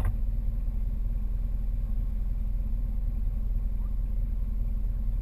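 Off-road vehicle engine running steadily with a low, even rumble.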